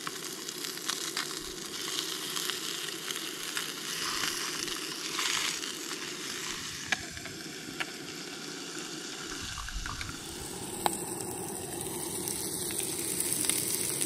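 Trout and trout eggs frying in butter in a small camp pan: a steady sizzle, with a few sharp pops.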